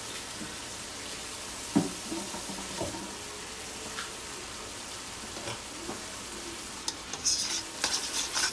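Seasoned chicken pieces sizzling steadily in a wok, with a single knock a little under two seconds in. About seven seconds in, stirring starts, and a utensil scrapes and clatters in the pan over the sizzle.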